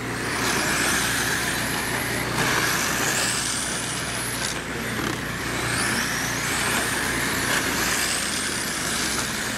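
Electric RC late model cars with 10.5-turn brushless motors racing on a dirt oval. Their motors give high-pitched whines that rise again and again as the cars accelerate down the straights, over a steady rush of tyre and track noise.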